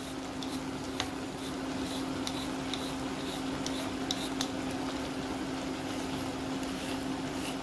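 Tomato and pepper sauce simmering in a pan on an induction hob: faint bubbling with scattered small pops and ticks over a steady low hum.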